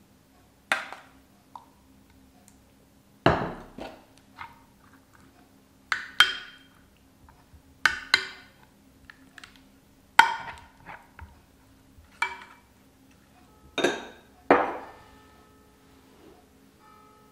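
Metal spoon knocking and clinking against glass and ceramic dishes while béchamel is spooned onto a lasagna: about ten short, ringing clinks a second or two apart, some in quick pairs.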